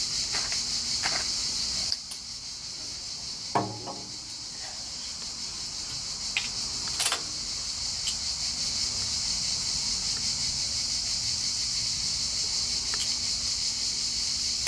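Steady high chirring of insects in the background. Over it, a wooden pepper mill grinds with quick ticks for the first second or two, then comes a knock a little under four seconds in as something is set down on the table, and a light clink about seven seconds in.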